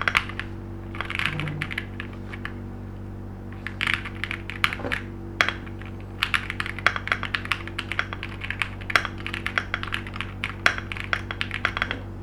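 Typing on a stock Weikav Sugar65 gasket-mount mechanical keyboard, with an aluminium case, FR4 plate, JWK Black linear switches and ASA-profile keycaps. The keystrokes come in fast runs, broken by two short pauses in the first half.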